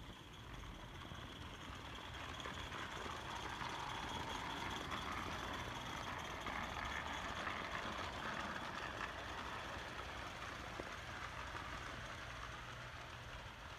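Accucraft Ruby live steam locomotive running past with its train on garden-railway track: a steady hiss of steam and running noise that swells as it comes close and eases off as it draws away.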